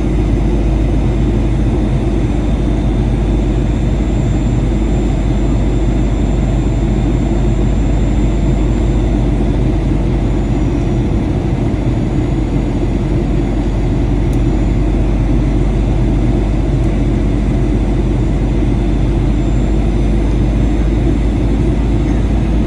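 Steady cabin noise inside a Boeing 737-800 in flight: the rush of air along the fuselage mixed with the hum of its CFM56-7B turbofan engines, loud and unchanging throughout.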